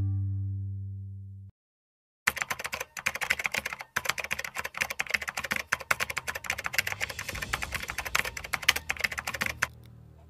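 The last chord of a short intro jingle dies away. After a brief silence, a rapid run of computer-keyboard typing clicks plays for about seven seconds as a sound effect for on-screen text being typed out.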